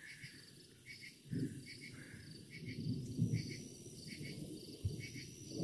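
Crickets chirping in steady short repeated pulses, with a low rumble of thunder starting about a second and a half in and fading over a couple of seconds.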